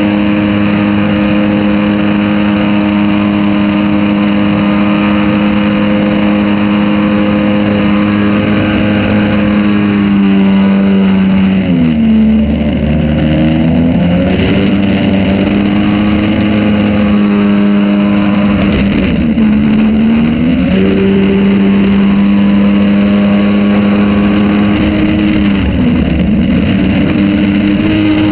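Jet-drive outboard motor on a jon boat running steadily under way. Its note dips briefly and climbs back several times as engine speed eases off and picks up again.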